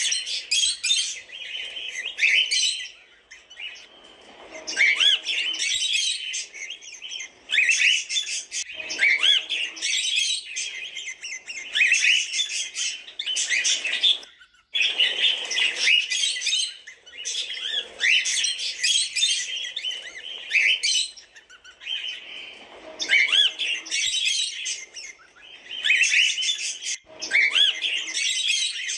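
Cockatiels chirping and calling in bursts of a second or two, with short pauses between.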